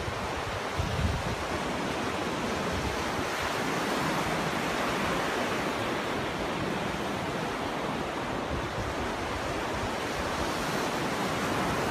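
Ocean surf: waves breaking and washing up a beach in a steady rush, with a brief low thump about a second in.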